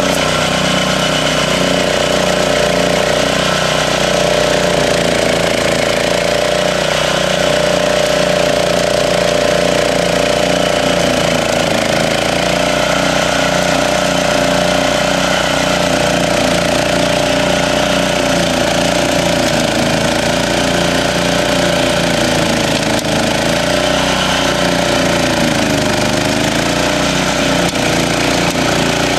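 A walk-behind trencher's small gasoline engine running steadily under load while its cutting wheel digs a trench through lawn soil, the engine note wavering slightly as the load changes.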